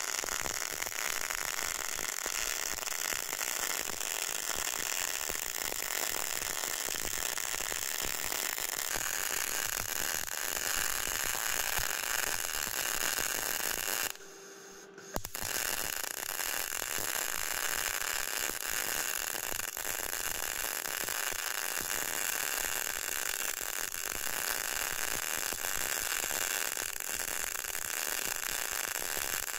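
CO2 semi-automatic (gas-shielded) welding arc on low-current solid wire, laying a vertical fillet weld: a steady crackling hiss. About halfway through the arc stops for about a second, then starts again.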